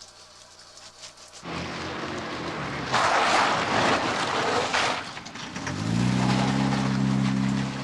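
Bathroom plumbing: water rushes loudly for a couple of seconds, then a low steady hum of the pipes comes in near the end and cuts off suddenly.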